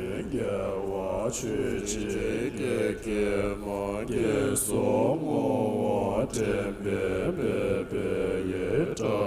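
A group of voices chanting together, the pitch rising and falling in repeated arcs, with sharp hissing consonants now and then.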